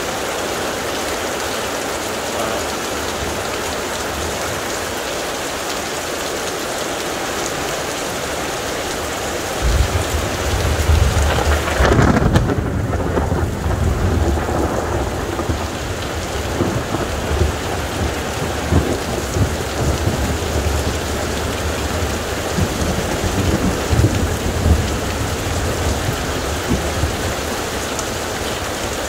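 Heavy rain falling steadily in a thunderstorm. About ten seconds in, thunder breaks in with a deep rumble and a sharp crack a couple of seconds later. It keeps rolling in uneven peals for some fifteen seconds, then leaves the rain alone again near the end.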